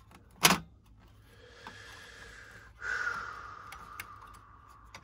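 A sharp metallic click, then the Minisforum MS-01 mini PC's metal internal tray sliding along its rails in the chassis with a scraping rub that drops slightly in pitch.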